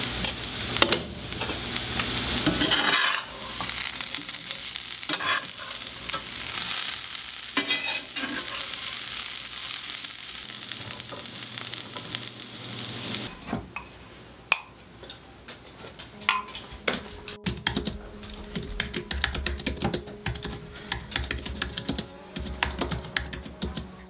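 Chopped vegetables sizzling in a pan on a gas burner, with stirring and scraping for the first half. Then a run of sharp, irregular clicks and taps.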